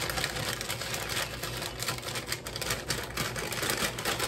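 Thin plastic bag crinkling and rustling as it is handled, with cookies shifting inside it, as a dense, irregular crackle.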